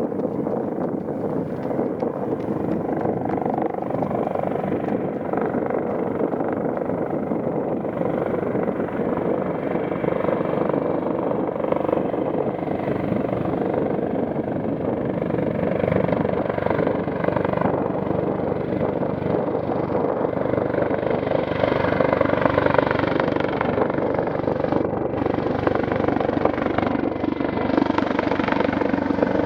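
Airbus H225M Caracal twin-turbine helicopter running steadily, its rotor and engine noise continuous and growing a little louder and brighter in the second half.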